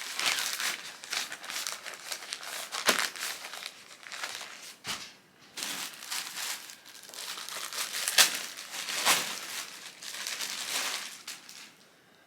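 Packaging crinkling and rustling as a clothing item is handled and unwrapped, with sharp crackles throughout. It pauses briefly about five seconds in and stops just before the end.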